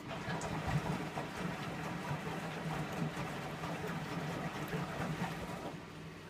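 Empty drum of a Candy Aquamatic 2 compact washing machine turning during a descaling Cotton 95 wash. It makes an uneven churning noise for about six seconds, then stops, leaving a low steady hum.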